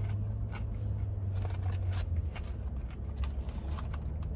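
Faint clicks and rustles of someone eating curly fries, over a steady low hum.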